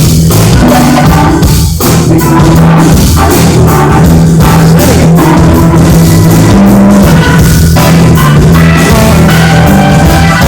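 Live rock band playing an instrumental passage, with drum kit and electric guitar, loud and steady, with a brief dip about two seconds in.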